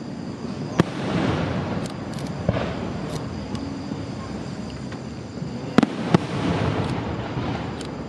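Aerial firework shells bursting: about four sharp bangs, the loudest about two-thirds of the way through, over a continuous rumble.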